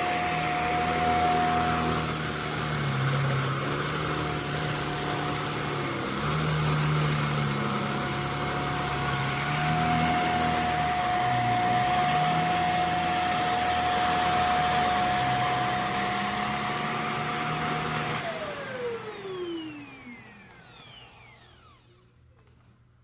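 JPHYLL corded mattress vacuum cleaner running with a steady high whine over a low hum that wavers in pitch. About 18 seconds in it is switched off, and the whine falls steadily in pitch as the motor winds down over a few seconds.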